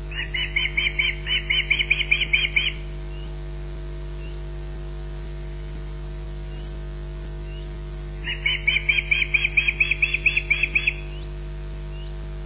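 Osprey giving warning chirps at corvids near the nest: two bouts of rapid, high-pitched chirps, several a second, each lasting two to three seconds, the second starting about eight seconds in. A steady electrical hum from the nest-camera feed runs underneath.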